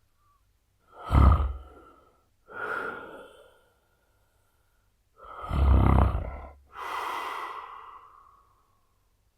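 A man snoring heavily: two loud, deep snores, about a second in and about five seconds in, each followed by a softer breathy breath that fades out.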